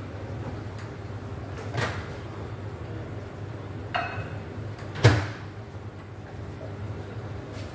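Glassware and objects being handled on a coffee bar counter: a light knock, then a short glass clink as the glass pour-over server is set on the scale, and a louder sharp knock about five seconds in. A steady low hum runs underneath.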